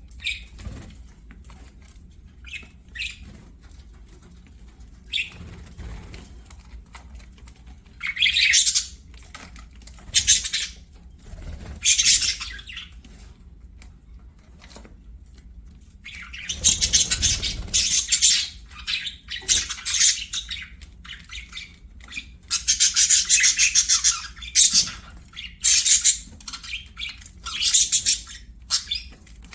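Budgerigars chattering and chirping in bouts of high, buzzy warbling with squawks, sparse at first and busier from about eight seconds in.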